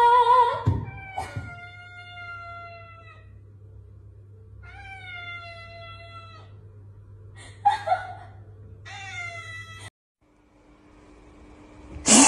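Tabby cat meowing: three long, drawn-out meows, the first two about two seconds each and the last shorter, after a woman's sung note that fades out in the first second.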